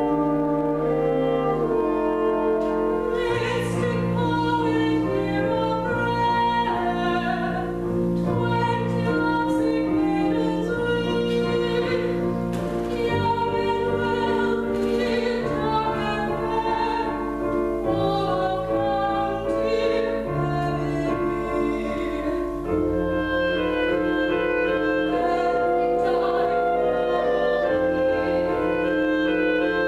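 Operetta chorus singing with orchestral accompaniment: a double chorus of women's and men's voices on sustained, slow-moving notes.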